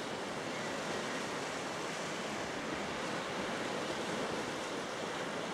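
Steady, even wash of sea surf on a rocky boulder shore, with no separate wave crashes standing out.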